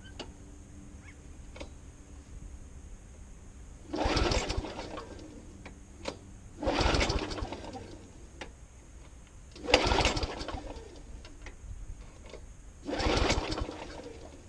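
Walk-behind petrol lawnmower being pull-started four times, each pull a brief rasp of the recoil starter with the engine turning over and dying away without catching: a cold engine tried without choke or primer.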